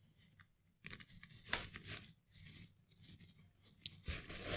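Faint, irregular rustling and scraping of packaging as a telescope tripod's accessory tray is lifted out of its box, with a sharp click about a second and a half in and louder rustling near the end.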